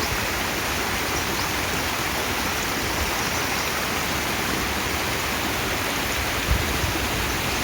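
Flowing water rushing steadily over stones, with a brief low bump about six and a half seconds in.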